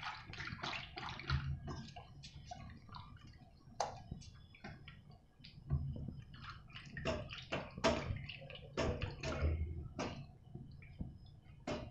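A wooden hand churner stirring thick yogurt in a stainless steel bowl: irregular wet squelches and sloshes, with quick taps and scrapes as the churner hits the bowl's side.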